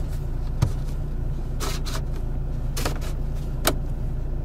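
Lada Granta's hazard-light flasher clicking about once a second, the first click the loudest, over the low steady hum of the idling engine.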